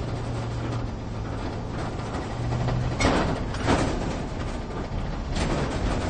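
Cabin sound of a vehicle driving off-road: a low engine drone and rumble for the first three seconds, then several jolts and rattles from rough ground, the loudest about three and a half seconds in.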